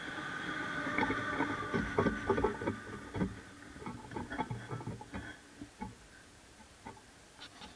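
An electric-locomotive-hauled passenger train passing and running away. A steady whine fades out in the first second, then a quick run of clicks and knocks rises and thins out, and the whole sound dies down as the train draws away into the tunnel.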